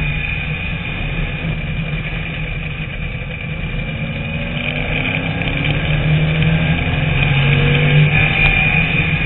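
TVR Tuscan race car's engine at racing speed, heard onboard. The engine eases a little about two to three seconds in, then pulls harder with revs climbing for the rest.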